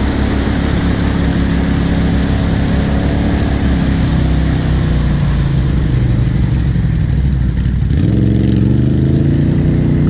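ATV engine running under load as the quad wades through deep flood water, with a steady rush of churned water and wind noise over it. About eight seconds in the rushing noise drops and the engine pitch rises as the rider gives it more throttle.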